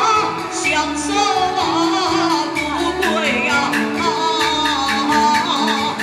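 Taiwanese opera (gezaixi) aria sung into a microphone, the voice sliding and ornamented, over amplified instrumental accompaniment with regular percussion beats and a repeating bass line.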